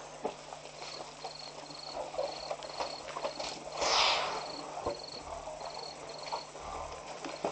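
African elephants shuffling and scuffing in dry dirt and brush: scattered scrapes and knocks, with one short, loud whoosh about four seconds in. A high chirp repeats about twice a second through most of it.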